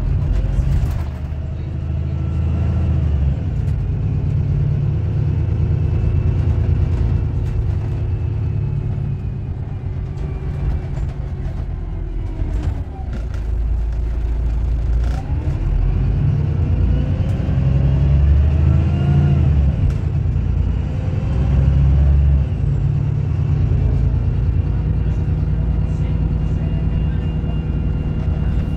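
VDL Berkhof Ambassador city bus with Voith automatic gearbox, heard from inside the passenger cabin while driving: a low engine drone whose pitch rises and falls several times as the bus speeds up, changes gear and slows. Occasional interior rattles and clicks sound over it.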